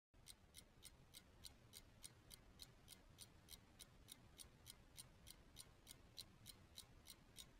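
Faint, quick ticking of a clock, evenly spaced at about three to four ticks a second.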